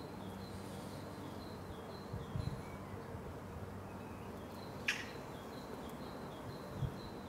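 A small songbird repeating a two-note phrase, a higher note then a slightly lower one, about twice a second, over a faint steady low hum of distant background noise. A few soft thumps and one short tick are heard in the middle.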